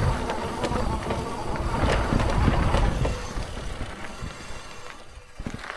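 Hitway BK10S fat-tyre e-bike riding over a rough dirt track: a rumble of tyres with rattling knocks and clicks, growing quieter after about three seconds.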